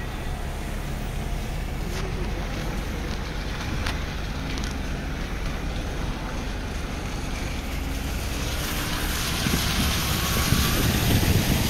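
Road and wind noise of a car driving along, heard from inside the car as a steady rumble and hiss. About two-thirds of the way through it grows louder and hissier.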